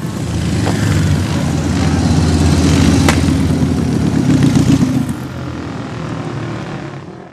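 A motorcycle engine running loud, building over the first few seconds and then dropping back about five seconds in, with a sharp crack about three seconds in.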